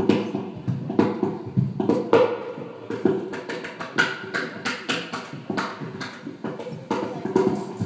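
Acoustic guitar strummed in a steady rhythm, with a strong strum about once a second.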